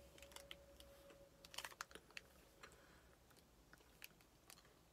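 Near silence with faint, scattered clicks of chewing, a cluster about one and a half seconds in, from a chewy peanut-and-caramel chocolate bar being eaten.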